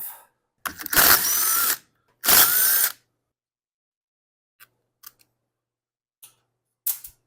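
Cordless power driver with a socket spinning off the two carburetor mounting nuts on a Stihl MS390 chainsaw: two short runs, the motor whine rising as each one spins up. A few light clicks follow as the nuts and tool are handled.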